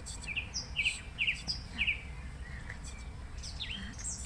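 A bird chirping: a quick series of short high notes in the first two seconds, then a couple of downward-sweeping calls near the end.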